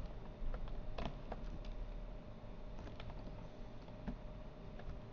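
Scattered, irregular clicks of computer keyboard keys, about one or two a second, over a faint steady hum.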